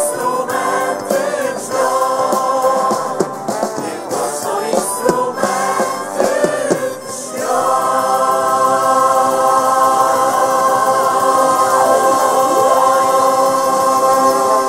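Vocal ensemble singing in harmony with acoustic guitars and violins. The sung line moves for about the first half, then the voices settle on one long held chord.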